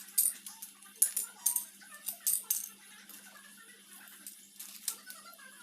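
A quick series of sharp clicks and rattles of small hard objects, clustered in the first half with a couple more near the end, over a steady low hum.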